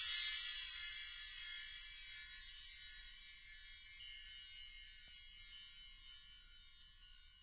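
Sampled concert bar chimes from the Stories SDX library ringing out after a fast upward sweep. The shimmer fades steadily, with single bars still tinkling about every half second.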